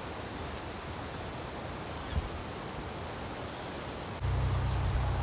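Creekside outdoor ambience: a steady hiss of flowing creek water with a faint, steady high-pitched tone. There is a soft knock about two seconds in, and near the end low wind rumble on the microphone grows suddenly louder.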